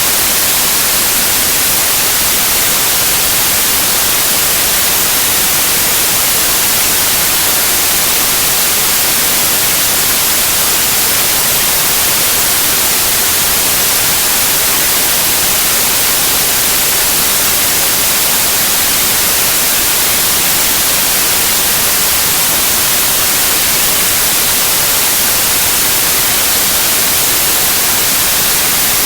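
Steady white noise: an even, unchanging hiss across the whole range, loudest in the treble.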